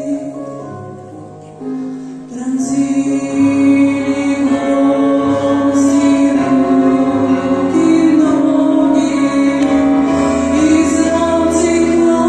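A woman singing a slow Russian-language Christian song with instrumental accompaniment. The sound thins out over the first two seconds, then the voice and accompaniment come back in fuller.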